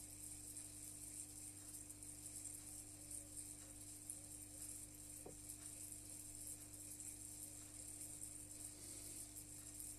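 Aquarium equipment running: a steady mains hum from a filter or air pump, with a faint constant high hiss and a soft click about five seconds in.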